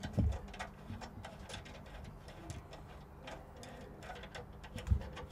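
Screwdriver tightening a rack-mounting screw on a metal equipment rack: a run of small, irregular metallic clicks and ticks, with a couple of soft thumps near the start and near the end. A steady low hum runs underneath.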